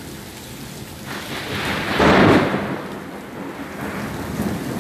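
Steady heavy rain with a clap of thunder that swells about a second in, is loudest just after two seconds, then rumbles away.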